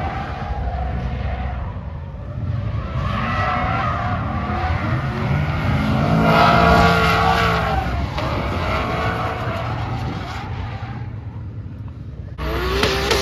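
Car drifting: its engine revving up and down under hard throttle while the tyres squeal and scrub in a long slide, loudest about halfway through, then fading. Near the end it cuts abruptly to another car's engine and tyres, louder and closer.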